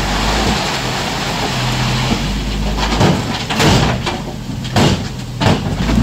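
Diesel engine of heavy earthmoving machinery running at work, with a few sharp, noisy crashes in the second half.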